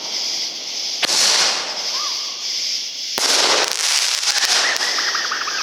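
Consumer fireworks going off: two sharp bangs, each followed by a loud hiss of spray, then a quick rattle of crackles.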